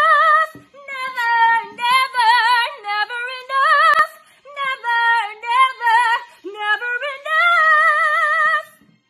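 A woman singing solo with no accompaniment, in several phrases of held notes with a wide vibrato and short breaths between them.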